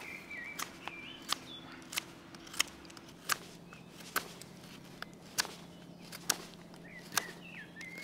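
Victorinox Huntsman pocket-knife blade slicing shavings off a split hazel stick, each stroke a crisp snap, about every half second to a second. This is the flattening of the split face and cutting out of the pith.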